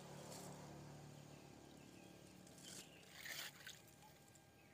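Near silence with faint swishes and splashes of a small hand net moving through shallow ditch water, the loudest about three seconds in.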